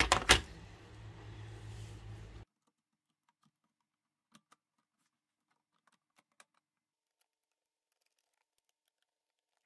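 Plastic clicks and knocks as a Brother sewing machine's top cover is picked up and handled, loudest at the start. After about two and a half seconds it goes to near silence, with a few faint ticks.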